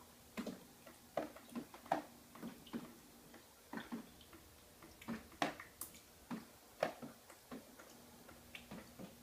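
Water dripping from a leak left by a failed water heater, single drops landing at an irregular pace with sharp ticks, some louder than others.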